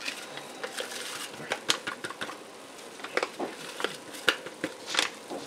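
A paper packet of chili seasoning being handled and shaken out over a pot of browned ground beef: scattered crinkles and light ticks, over a faint sizzle from the pot.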